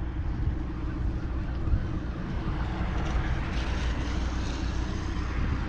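Steady low engine rumble, with a hiss that swells for a couple of seconds around the middle.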